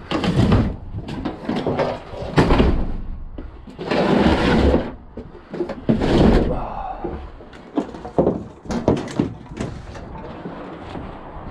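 A series of heavy bangs, clatters and scraping, typical of scrap metal being handled and loaded into the back of a truck. There are four loud crashes in the first six seconds, then lighter knocks.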